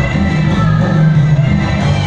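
Live band playing amplified music, with a prominent bass line.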